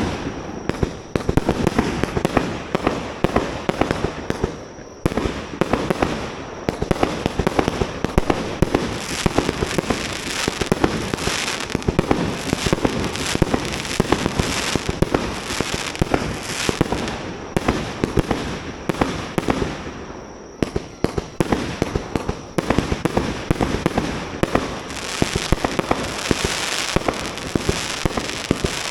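Fireworks display: a dense, continuous barrage of crackling and popping bursts, easing briefly twice before building again.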